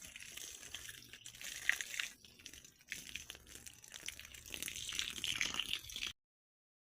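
Running water splashing, as when plants are being watered; it cuts off suddenly about six seconds in.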